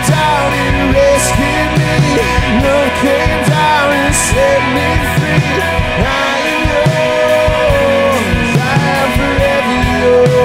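Live rock-style worship band playing, with electric guitars and a drum kit under a man's singing voice.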